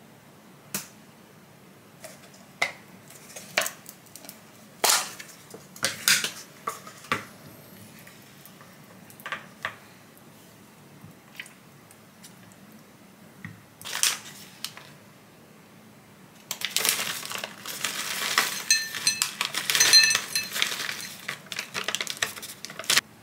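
Kitchen dishes and utensils handled: scattered separate clinks and knocks, then for the last six seconds or so a busy run of rapid clattering that stops sharply.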